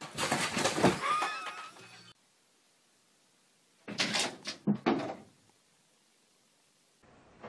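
A cat jumping onto a cardboard box: a burst of thumps and cardboard rattling for about two seconds. After a pause, a second cluster of sharp thumps and knocks as another cat leaps and lands.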